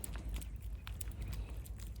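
A cat chewing food: scattered small clicks and crunches over a low rumble.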